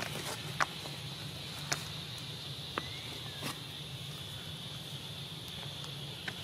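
Steady high-pitched insect drone of tropical forest, with a low hum under it and a few sharp clicks in the first half.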